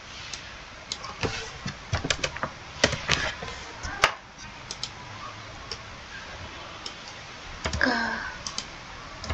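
Computer keyboard and mouse clicks: a quick run of key presses starting about a second in, then scattered single clicks.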